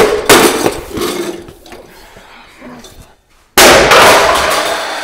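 Sharp knocks and clattering, then a loud sudden crash about three and a half seconds in that dies away over about two seconds: a stool going over in a fall that leaves a man with a hurt knee.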